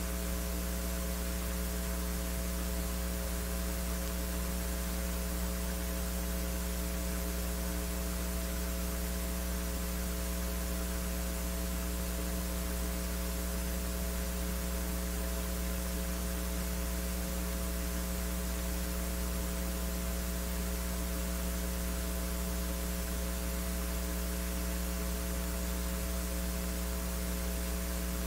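Steady electrical mains hum with a faint hiss: a low, unchanging drone with several higher tones stacked above it.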